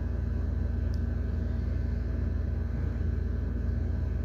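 Steady low rumble with a faint steady hum over it, without a break.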